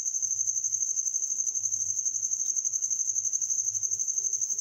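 A cricket chirping: one high-pitched, rapid and evenly pulsing trill that goes on without a break.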